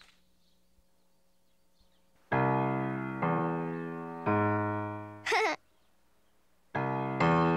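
Grand piano played loudly: three big chords about a second apart, each left ringing and dying away. After a short wavering high-pitched sound, two more loud chords come near the end.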